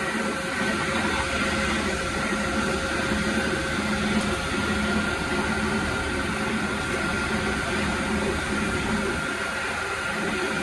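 Marble-workshop machinery running steadily: continuous machine noise with a steady motor whine and a low hum.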